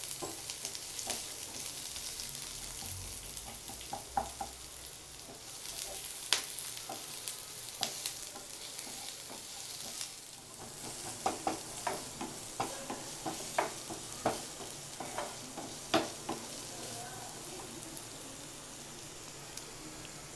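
Sliced onions and chopped garlic sizzling in olive oil in a non-stick frying pan, stirred with a wooden spatula that taps and scrapes against the pan. The taps come most often in the second half.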